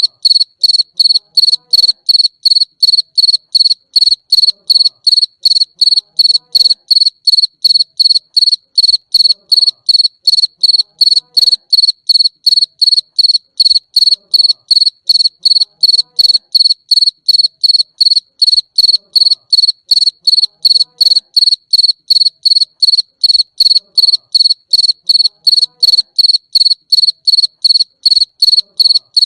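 Cricket chirping loudly and steadily, about three short, high, clear chirps a second in an unbroken even rhythm.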